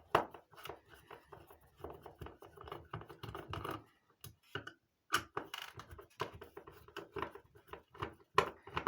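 Hands handling and working on the parts of a disassembled radio telephone's battery pack: irregular clicks, taps and scraping of plastic and metal, with a short pause about halfway through.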